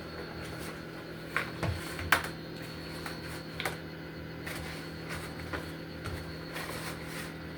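Kitchen utensils tapping and knocking against cookware, about ten irregular sharp clicks with the sharpest about two seconds in, over a steady low hum.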